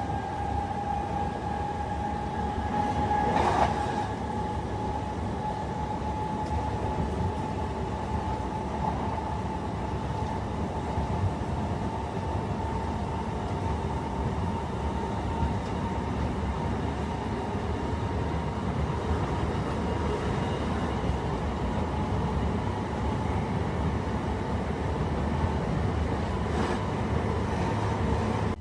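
Class 376 Electrostar electric multiple unit accelerating hard, its traction motors whining with a steady tone that climbs slowly in pitch over a low rumble of wheels on rail. A short knock about three and a half seconds in, and another near the end.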